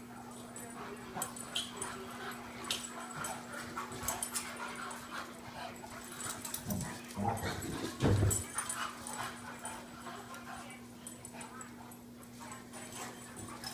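A dog making small, quiet sounds, with a louder, deeper burst about eight seconds in. A steady low hum runs underneath.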